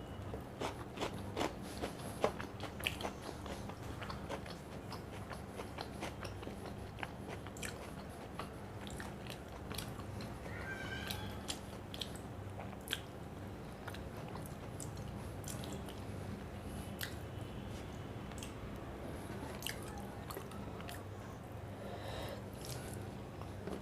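A person chewing and biting food close to the microphone, with many short, sharp crunchy clicks. A steady low hum runs underneath.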